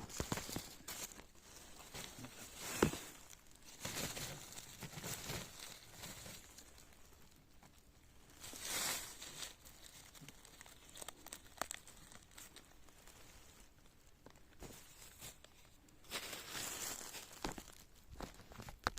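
Intermittent rustling, crinkling and tearing as clusters of honey fungus are cut and pulled from a stump and handled into a basket, with scattered sharp clicks.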